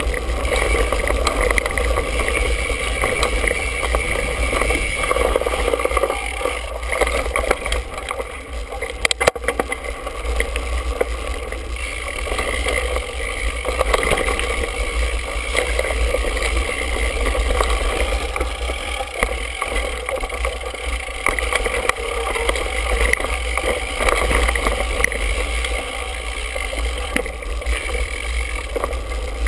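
Mountain bike riding over a dirt singletrack, heard from a handlebar-mounted GoPro: a steady wind rumble on the microphone with the rattle of the bike over the trail, and a few sharp knocks about nine seconds in.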